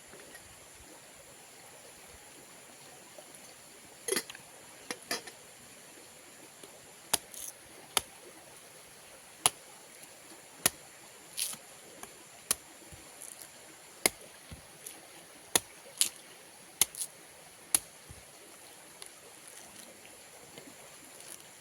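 A series of sharp, irregular clicks or snaps, about fifteen in twenty seconds and some in quick pairs, over a faint steady hiss with a thin high steady tone.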